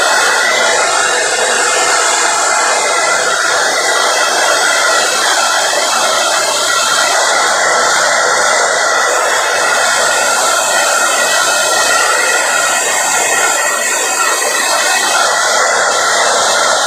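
Handheld hair dryer running steadily, blowing into a dog's coat to dry it after a bath: an even whoosh of air with a faint steady whine.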